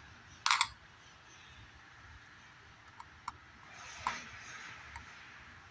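Handling of metal parts and tools while a cover is refitted. One sharp clack about half a second in, then a few light ticks, over a quiet background.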